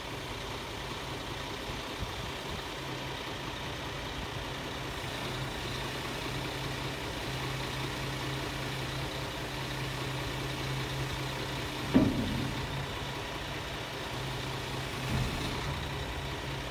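Scania G480 truck's 13-litre inline-six diesel engine idling steadily, with a sharp metallic clunk about twelve seconds in and a smaller knock about three seconds later.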